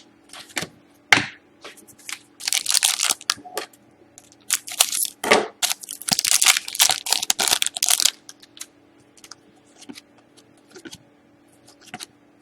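Hockey trading cards being handled and shuffled by hand: crinkling, sliding rustles and small clicks, thickest in the middle, with scattered light ticks at the start and near the end.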